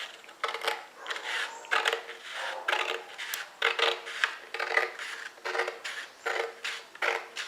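Scissors cutting through a printed paper game card, a steady series of short snips at about two a second.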